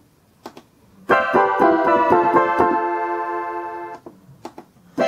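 Concertmate electronic keyboard playing several notes on its 83rd preset voice. A quick run of notes with a bright tone starts about a second in, then rings and fades away by about four seconds. Faint clicks of the panel buttons come before and after the notes.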